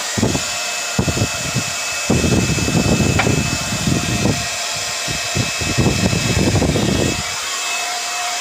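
Cordless hair dryer running, a steady rush of blown air with a thin high motor whine, and low rumbling gusts through the middle stretch.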